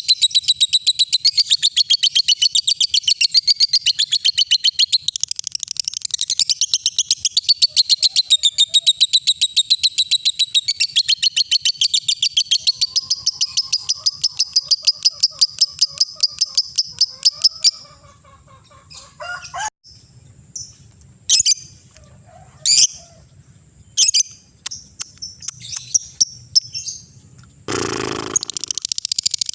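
Lovebird ngekek: a long, rapid, unbroken chattering trill that runs for about eighteen seconds and then stops. Scattered single chirps follow, with a brief noisy burst shortly before the end.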